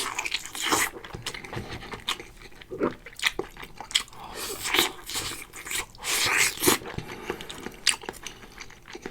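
A person eating braised soy-sauce pork bones close to the microphone: irregular bites and chewing, gnawing meat from the bone.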